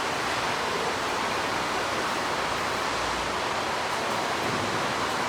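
Steady rushing noise of running factory machinery, with no separate knocks or clanks.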